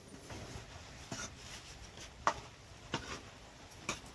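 Dishes and eating utensils being handled: soft scraping with four light, sharp clicks about a second apart, the loudest near the middle.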